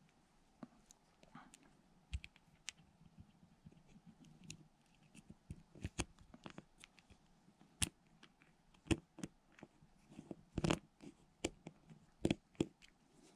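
Small clicks and knocks of plastic and metal parts of a Daiwa Tatula CT baitcasting reel being handled and pressed together as the frame is fitted around the main gear and handle shaft. The taps come irregularly, growing more frequent and louder in the second half.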